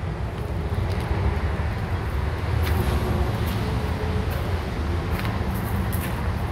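Steady low outdoor rumble, like distant road traffic, with a few faint ticks in the second half.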